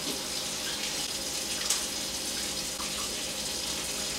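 Kitchen sink faucet running steadily, water splashing into the sink, with a few faint clinks.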